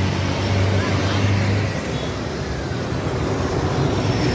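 Road traffic running past on a busy street, with a low engine drone from a passing vehicle that fades out about two seconds in.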